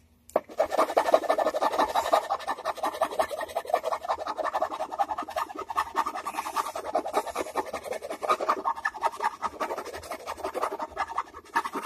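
Hand file scraping back and forth along the edge of a Stratocaster-style guitar body in quick, steady strokes, rounding off the squared edge.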